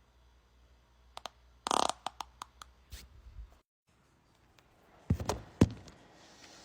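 Breaking wind, in two separate bits. First comes a short, loud burst about two seconds in, among a few clicks and light rustling. After a brief gap, a low fart of several quick pulses ends in one sharp blast, the loudest sound here.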